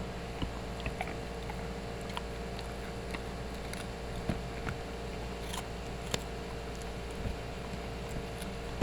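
A husky gnawing on a rawhide chew: irregular clicks and crunches of teeth on the hide, over a steady low background hum.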